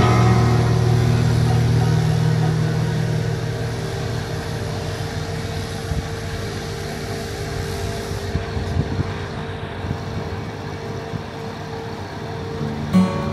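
Heavy construction machinery engine running steadily, a low drone that is loudest at the start and eases off. Plucked guitar music begins near the end.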